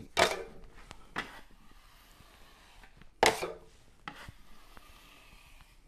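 Steel drywall taping knife scraping joint compound across a drywall butt joint in four short strokes, the loudest about three seconds in, as the edges of the joint are feathered on the first coat.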